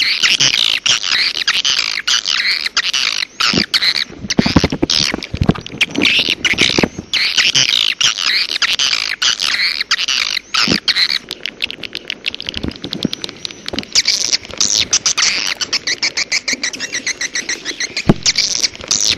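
Bird-call lure recording: loud, fast, densely overlapping high chirps and twittering trills that run on without a break, with a few short clicks among them.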